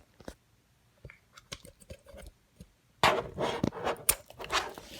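Small objects being handled on a tabletop: scattered light clicks and taps, then from about three seconds in a stretch of crinkling and rustling lasting under two seconds.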